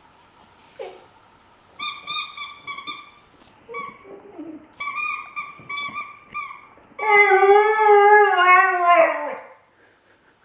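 English setter puppy vocalizing at its ball: two runs of quick, high-pitched whines, about two and about five seconds in, then a long, loud, wavering howl-like call that falls in pitch as it ends.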